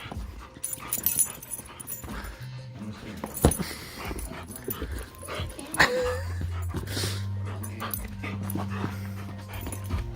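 A dog at rough play: scattered clicks, scuffles and short noises, with a brief whine about six seconds in. Background music with a steady low bass comes in about six seconds in.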